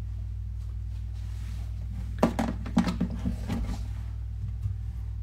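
A short cluster of light clicks and knocks about two seconds in, lasting about a second and a half, as cut zucchini pieces are laid on a baking tray, with a few fainter knocks later. A steady low hum runs underneath.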